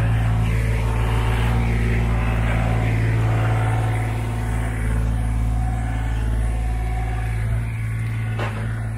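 Street traffic with a heavy vehicle's engine running close by: a loud, steady, deep hum that eases a little after the middle.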